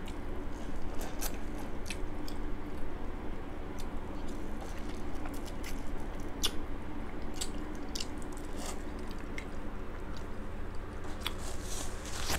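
Close-miked chewing and biting: a person eating sauce-soaked seafood-boil food, with scattered wet mouth clicks and smacks. A steady low hum runs underneath.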